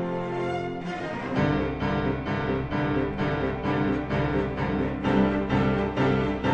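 Background music led by piano. About a second and a half in, a low bass and a steady rhythm of notes come in.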